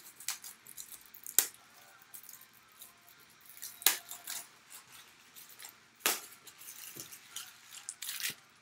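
Trading cards and their plastic and cardboard packaging being handled on a table: a handful of sharp clicks and taps, the loudest about one and a half, four and six seconds in, with light scraping and rustling between.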